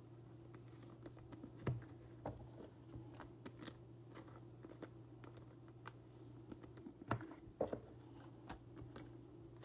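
Faint clicks and rustles of trading cards being handled and shuffled through, with a torn plastic pack wrapper crinkling and a couple of sharper taps, over a steady low hum.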